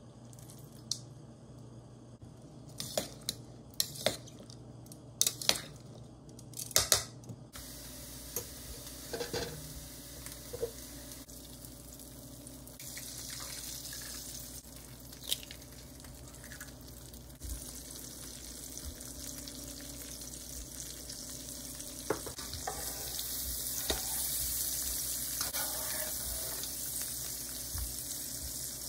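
A few sharp clicks and knocks, then eggs frying in butter in a nonstick pan: a steady sizzle that grows louder near the end, with a few sharp taps as eggs are cracked into the pan.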